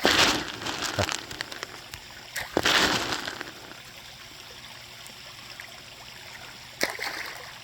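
Water in a koi pond: a few brief splashes and sloshes at the surface, at the start, about three seconds in and near the end, over the steady trickle of a small waterfall.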